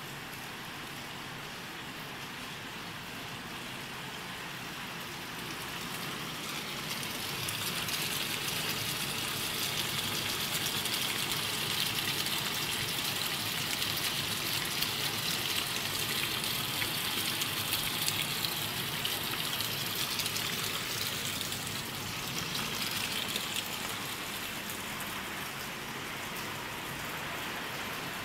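Steady running noise of a corn-snack production line's machinery, a dense hissing rattle that grows louder about seven seconds in and eases back after about twenty seconds.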